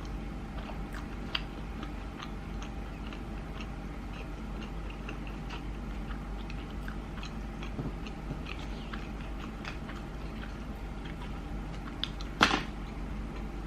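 Close-miked chewing of sushi: soft, irregular wet mouth clicks and smacks over a steady low hum. A short louder rustle near the end.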